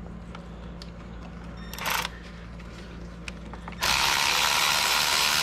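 Ratchet with a 10 mm socket loosening a thermostat-housing bolt. A few faint clicks and a short scrape come about two seconds in. Then, near the end, a loud, steady, rapid ratcheting starts suddenly.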